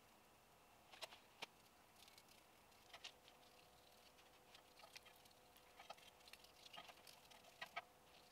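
Faint, scattered light taps and clicks of a paintbrush working paint onto metal brake calipers and carriers, over a faint steady hum.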